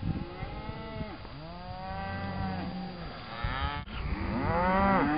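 A herd of cattle on a drive mooing: several long calls overlap, each rising and then falling in pitch, growing louder toward the end.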